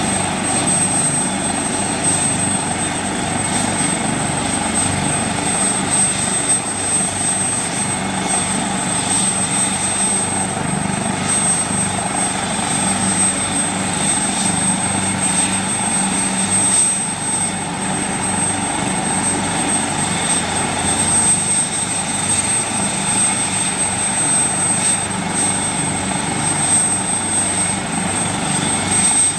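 Helicopter running steadily, its rotor and engine making a continuous rumble with a steady high-pitched whine over it.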